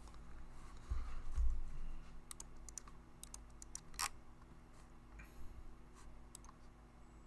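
Scattered keystrokes and clicks of someone typing on a computer keyboard, with a dull low thump about a second in.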